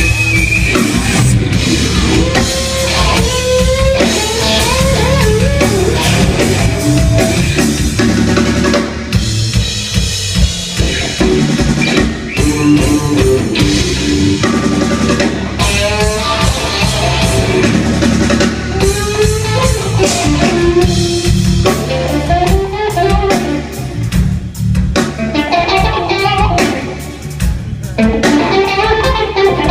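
Live rock band playing: electric guitar taking a lead solo of bending, sliding notes over bass and a full drum kit.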